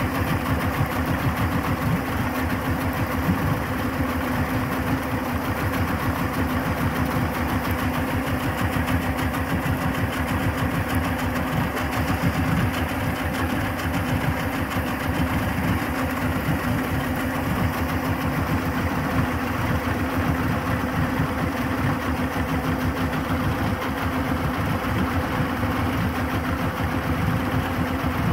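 2001 Yamaha 225 HP OX66 Saltwater Series II two-stroke V6 outboard running steadily at idle in a test tub of fresh water. Its cooling system has just been vinegar-flushed and its water pump replaced, and it is being run to see whether the overheat condition is cured.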